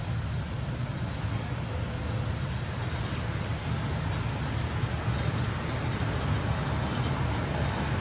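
Steady low rumble with an even hiss over it, with no distinct events.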